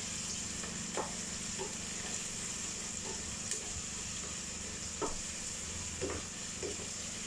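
Sliced onions sautéing with a steady sizzle in a metal pan, stirred with a wooden spoon that knocks and scrapes against the pan a few times.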